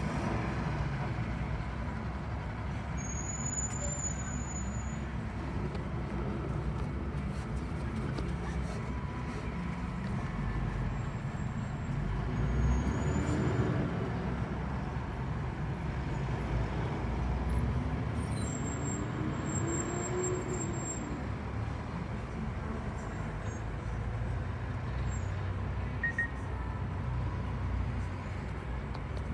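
City bus in motion, heard from inside the cabin: a steady low engine and road rumble. The engine note rises and falls twice as the bus speeds up and eases off.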